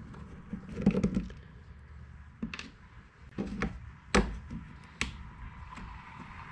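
Scattered clicks, taps and knocks of hands and a screwdriver working on the Saker mini electric chainsaw's plastic housing during disassembly, with a sharp knock about four seconds in the loudest.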